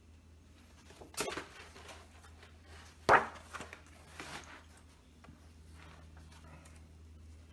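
Large pages of an oversized Red Book (Liber Novus) facsimile turned by hand: a few brief paper swishes, the loudest about three seconds in.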